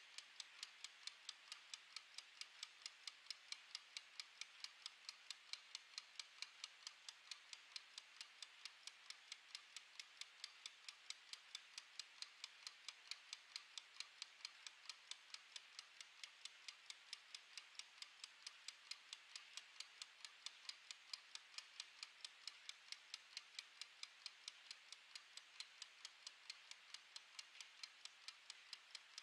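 Mechanical wind-up kitchen timer ticking as its clockwork runs down: faint, even, rapid ticks at a steady rate, a few per second.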